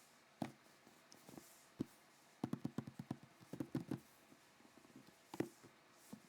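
Light handling of a new camera and its packaging: scattered sharp clicks and knocks, with a flurry of quick taps in the middle.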